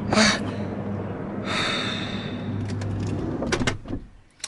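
Inside a vehicle cabin: a steady low hum, a long breathy exhale in the middle, and a few sharp clicks near the end, after which the hum drops away.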